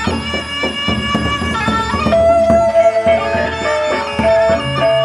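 Gendang beleq ensemble playing: the big double-headed barrel drums beat a fast, steady pattern over clashing cymbals and ringing gongs. A held, stepping melody line comes in about two seconds in.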